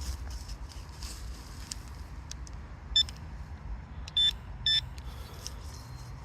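Metal detector giving three short high beeps over a steady low rumble. The first beep comes about halfway through and the other two follow close together about a second later.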